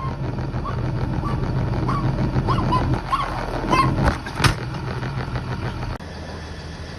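Short high squeaks from an animal, repeating every half second or so over a steady engine-like hum, with two sharp knocks about four seconds in. The hum cuts off suddenly about six seconds in.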